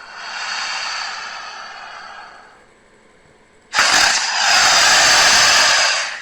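Crocodile vocalisations used as sea-reptile sound effects: a harsh, hissing call that fades out, then after a brief pause a sudden, much louder hissing call lasting about two seconds.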